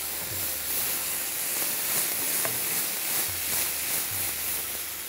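Black pepper sauce sizzling and hissing in a hot pan over a gas flame, with steam coming off it after a splash of water. A low hum comes and goes underneath.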